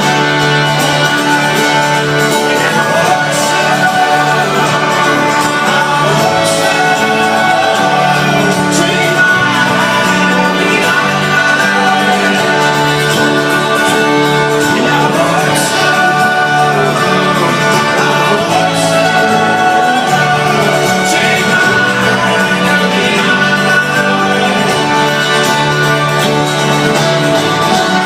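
Live folk-rock band playing loudly, with acoustic guitars, fiddle and a steady bass line.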